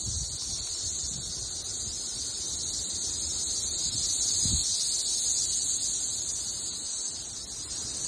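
Chorus of periodical cicadas, a steady, high-pitched droning buzz from many insects at once that does not let up.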